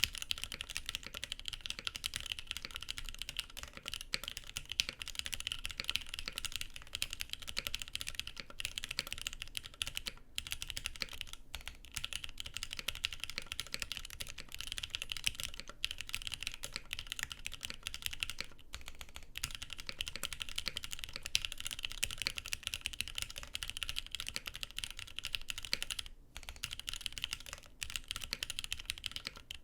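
Fast, continuous typing on a Frog custom mechanical keyboard with stock, unlubricated Gateron Milky Yellow Pro linear switches in an aluminium plate under GMK keycaps: a dense stream of keystroke clacks with a few brief pauses. In this stock state the clack is a little high-pitched.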